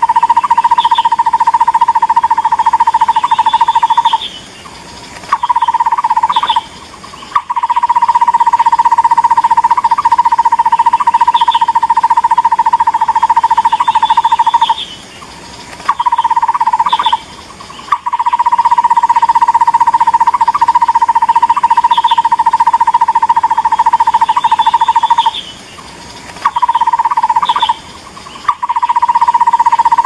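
Recorded call of the takur bukit barbet, used as a bird-lure call: long runs of rapid, evenly repeated notes on one pitch, broken by short pauses, in a pattern that repeats about every ten seconds.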